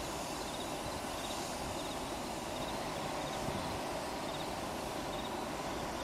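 Steady outdoor background noise, a low rumble and hiss, with a faint high chirp repeating about once a second.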